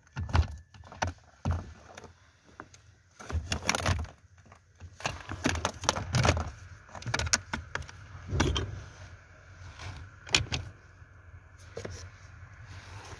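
Irregular hard plastic clicks, knocks and rattles as the A/C servo motor and linkage assembly is worked loose and pulled off the heater case.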